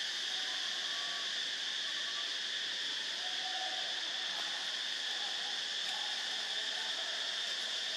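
A chorus of insects droning steadily at a high pitch.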